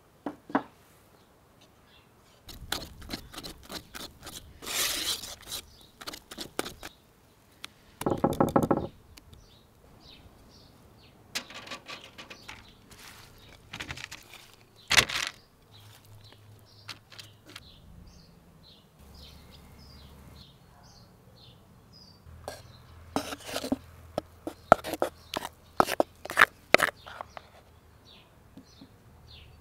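Cooking sounds at a table: a wire whisk beating batter in a clay bowl with a fast run of strokes, then knocks, clinks and a wooden spoon scraping batter out of the bowl into a metal baking pan. Small birds chirp faintly in the background.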